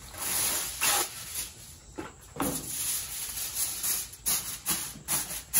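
Aluminum foil rustling and crinkling as sheets are pulled from the box and laid over the grill, with a few sharper crackles in between.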